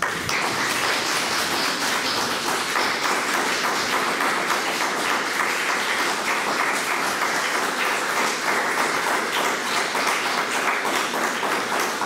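Audience applauding, many hands clapping in a dense, steady stream that breaks out suddenly.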